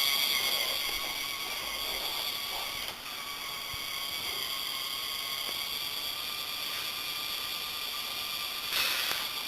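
Small K'nex toy motor running a plastic chain lift, a steady high whine with gear and chain noise, turning the lift of a K'nex roller coaster. A brief noisier stretch comes near the end.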